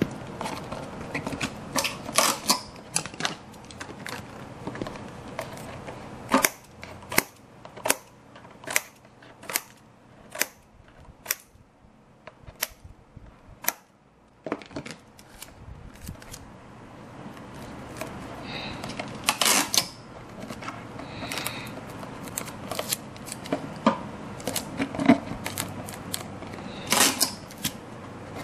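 Irregular sharp clicks and taps of hand tools and materials being worked on a small model, coming about one to two a second in places, with a short quieter gap about halfway through.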